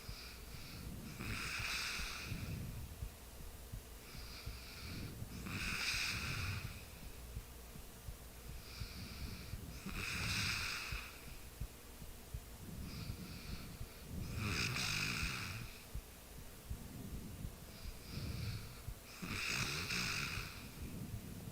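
A person snoring in sleep: slow, regular breaths about every four and a half seconds, each loud breath a low rasping snore with a breathy hiss, and a fainter breath between them.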